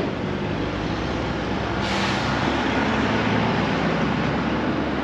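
Heavy truck engine running close by, a steady low hum with a rush of noise that grows louder about two seconds in.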